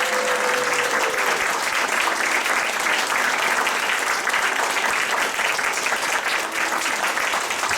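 Theater audience applauding steadily at the end of a play.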